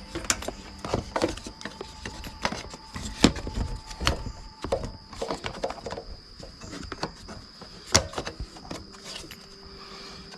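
Irregular clicks, knocks and clatter of small parts and hand tools being handled. A steady high-pitched insect whine runs underneath.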